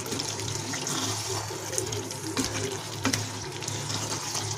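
Thick soya chaap gravy bubbling and sizzling in a nonstick pan as a spoon stirs it, with a couple of light clicks of the spoon against the pan over a steady low hum.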